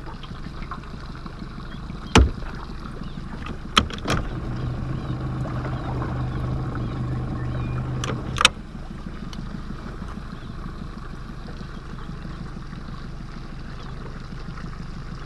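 Small boat sitting on the water with a steady low background and a few sharp knocks against the hull. A Minn Kota electric trolling motor hums steadily for about four seconds in the middle, then cuts off.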